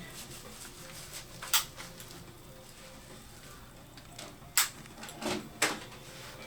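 Three sharp taps a few seconds apart on a full-arch implant bridge as it is knocked loose for removal from the implants.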